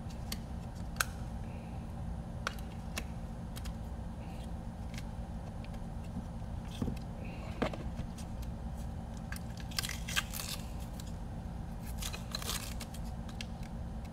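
Hands handling a plastic RC radio transmitter and its battery pack: scattered light clicks and knocks, with two short rustling patches about ten seconds in and again two seconds later, over a steady low hum.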